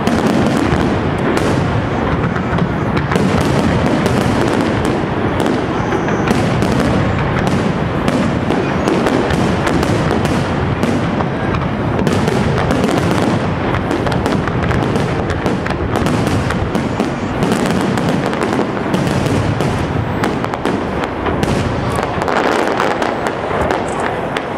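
Aerial fireworks display at full intensity: a dense, unbroken barrage of shell bursts and reports, easing slightly near the end.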